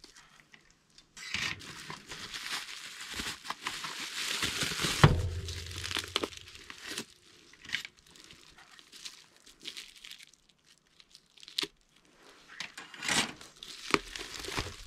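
Plastic bubble wrap crinkling and rustling in bursts as a bubble-wrap bag is cut open with scissors and pulled off the boxed item, with one loud thump about five seconds in.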